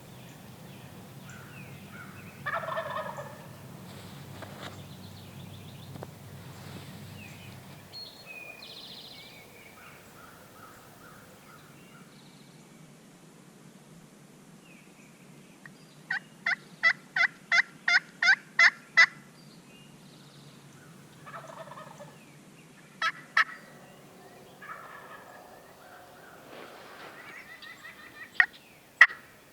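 Wild turkey gobbling a few seconds in, then a quick run of about a dozen sharp, evenly spaced turkey calls, with softer calls and a few more sharp notes near the end.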